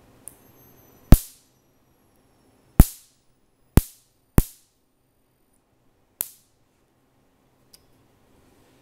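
High-voltage sparks jumping a gap at the output of a 5 kV Cockcroft-Walton voltage multiplier fed from a bug-zapper transformer: five sharp snaps, irregularly spaced about a second or two apart, each one the charged capacitor stack discharging. A faint high-pitched whine runs under the first half.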